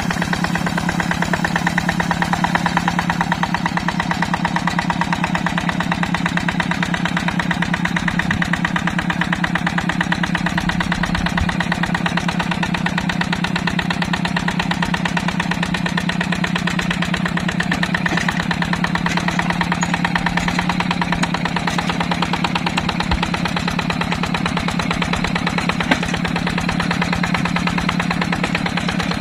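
Yanmar two-wheel hand tractor's single-cylinder diesel engine running steadily while it pulls through paddy mud, with a fast, even firing beat.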